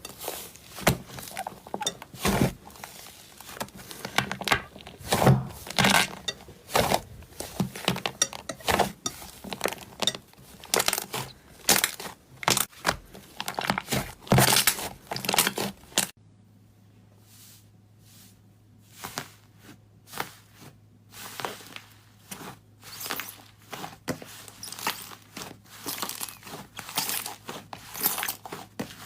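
Slime being squeezed and pressed by hand, giving a dense run of irregular sticky crackles and pops. A little past halfway the sound changes to sparser crackles over a faint low hum.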